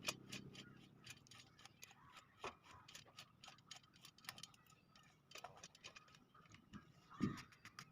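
Faint, irregular light metallic clicks and ticks as a bicycle axle is fitted through the hub of a spoked motorcycle wheel and fastened, with a soft knock near the end.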